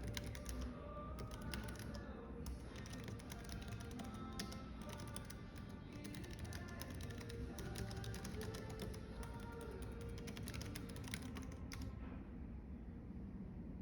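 Computer keyboard typing in quick, irregular clicks over background music and a steady low rumble; the typing stops about two seconds before the end.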